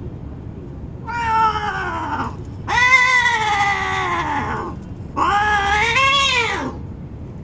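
Domestic cats caterwauling while mating: three long, drawn-out yowls, each sliding down in pitch as it ends, the second the longest.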